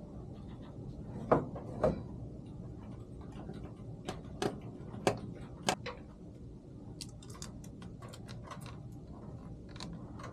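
Scattered sharp knocks and clicks of hands working with tools and parts: a few louder knocks in the first half, then a run of quicker, lighter ticks near the end, over a steady low hum.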